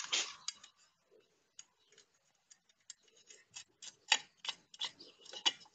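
Small metallic clicks and ticks from hands handling the bolted bracket and sprocket of a homemade angle-grinder chainsaw attachment. A short rustle at the start, then scattered clicks that come faster about three and a half seconds in.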